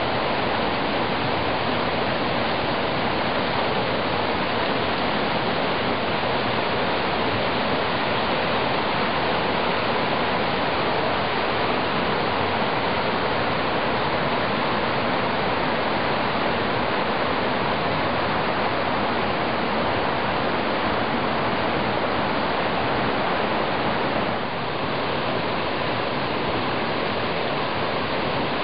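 Creek water rushing steadily as it spills over and through an ice dam built up behind a fallen tree, a little quieter near the end.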